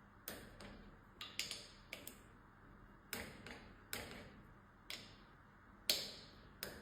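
Torque wrench clicking sharply about a dozen times at irregular intervals as two bolts on an air suspension fork are brought to the factory torque value.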